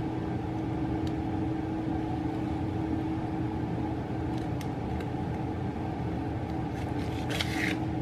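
A steady mechanical hum with one constant low tone. Near the end comes a crackly rustle of the plastic bacon package being handled.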